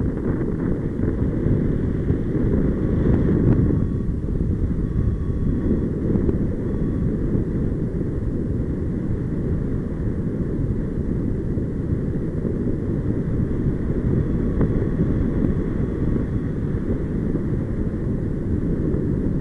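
Wind rushing over the microphone of a paraglider pilot's action camera in steady flight: a continuous low rumble.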